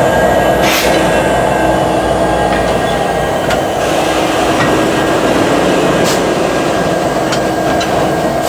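EMD 16-710 diesel prime mover of a locomotive running steadily, with a steady whine over the engine and a few brief sharp noises, the clearest about a second in and about six seconds in.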